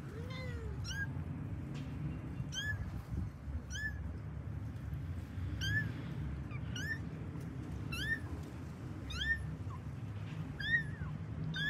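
Kitten mewing: short, high mews that rise and fall, repeated about once every second and a half, with one lower call near the start.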